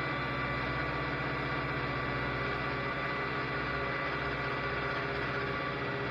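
Electric drill motor running steadily, turning the engine's oil pump through a primer adapter: priming the oil system to build oil pressure before a first start after years of sitting.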